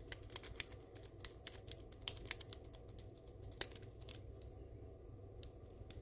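Rake pick from a Sparrows Las Vegas set scraping over the pins inside a lock: a quick run of small metallic clicks that thins out after about three and a half seconds, leaving a few scattered ticks.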